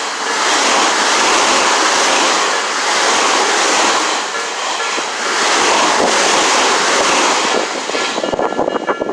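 A Tobu Tojo Line train passing close through a level crossing: a loud steady rush of wheels on rail that swells and eases about once a second. The crossing's warning bell rings under it and comes through again near the end as the train clears.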